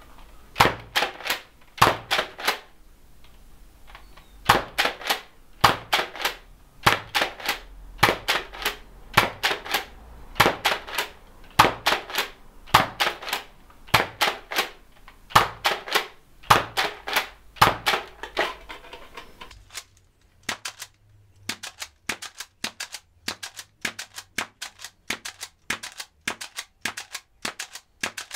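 Nerf Elite Alpha Trooper fitted with an 8 kg Blasterparts spring kit being pumped and fired dart after dart: sharp plastic clacks of the priming slide and the spring-driven shot come in clusters about once a second. About two-thirds of the way through, the clacks come quicker and more evenly spaced.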